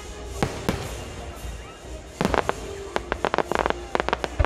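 Aerial fireworks shells bursting: two sharp bangs about half a second in, then a quick run of many sharp pops and bangs from about two seconds in, over a low rumble.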